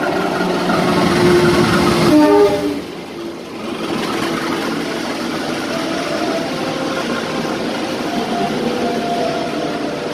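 Diesel-hauled passenger train pulling in alongside the platform: the locomotive passes loudest in the first couple of seconds, then the coaches roll by with steady wheel noise and drawn-out squealing tones.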